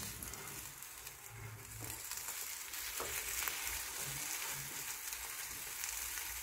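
Beaten egg with cheese sizzling steadily in a hot rectangular omelette pan as it is rolled, with a few light taps of a slotted spatula against the pan.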